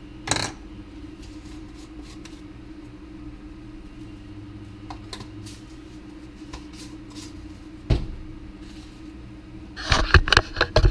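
A steady low hum under scattered light clicks and knocks of kitchen handling, with one thump about eight seconds in. Near the end, a quick run of knocks and rubbing as the camera is picked up and moved.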